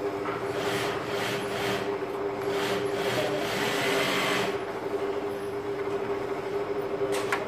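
Steady machine hum with a two-note drone, under the rustle and rubbing of striped fabric pocket pieces being folded and smoothed by hand on a worktable. A couple of sharp clicks near the end.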